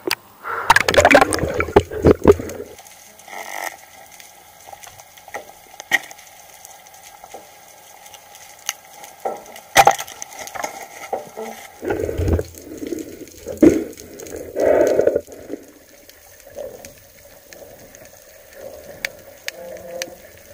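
Underwater recording: water and bubble noise against the camera, with loud bursts about a second in and again around twelve to fifteen seconds in, and scattered sharp clicks and knocks from the diver's gear.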